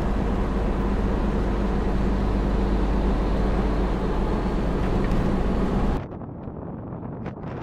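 Large truck driving on a wet road, heard from inside the cab: a steady engine drone with a constant low hum and road noise. About six seconds in it cuts off abruptly, and a quieter wind noise with scattered small ticks follows.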